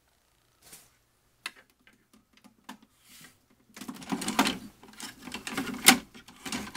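Scattered small clicks and rustling from things being handled. They are sparse at first and busier in the second half, with one sharp click near the end.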